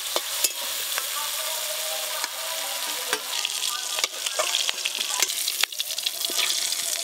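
Small shrimp sizzling in hot oil in a metal wok, with a metal spatula scraping and clicking against the pan as the fried shrimp are stirred and lifted out onto a steel plate.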